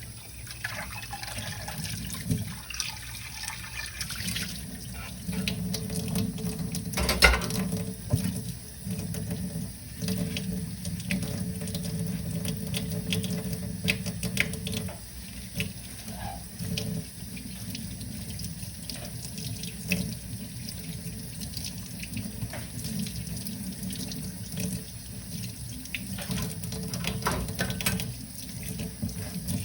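Tap water running into a sink while dishes are washed by hand, with scattered clinks and knocks of dishes, the loudest knock about seven seconds in.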